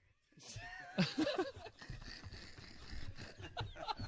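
People laughing quietly, in chuckles and snickers. It starts about half a second in, after a brief silence.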